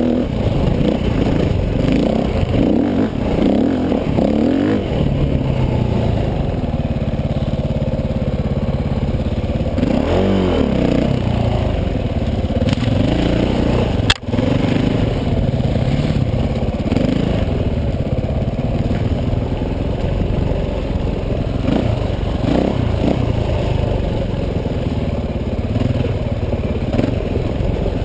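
2010 KTM 450 XC-W dirt bike's single-cylinder four-stroke engine revving up and down under throttle as it is ridden up a rocky trail. A single sharp click cuts through about halfway.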